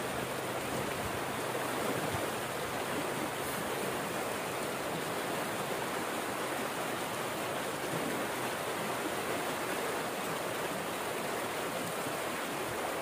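Steady rush of water pouring out of a concrete culvert pipe into a stream, churning white where it falls into the pool.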